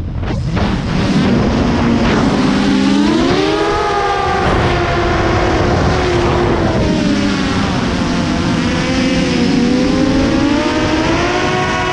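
A multirotor FPV drone's electric motors and propellers whining in flight, close up from its onboard GoPro, with rushing prop wash underneath. The pitch drops sharply right at the start, climbs about three to four seconds in, sags in the middle and rises again near the end as the throttle changes.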